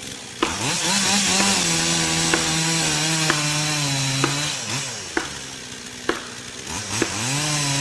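Two-stroke chainsaw revved up and held at high speed for a few seconds, dropping back to a low idle about four and a half seconds in and revving up again near the end. Sharp clicks come roughly once a second throughout.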